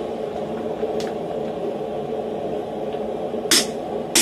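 Hand hammer striking a hot slitter driven into a glowing steel hammer blank on a bolster block: after a pause with a light tap about a second in, a sharp ringing blow comes near the end and another just as it ends, over a steady background hum.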